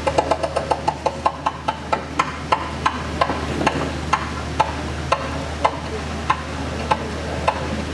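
A run of sharp percussion strokes that starts at about seven a second and steadily slows to about two a second. They sound over a steady low hum.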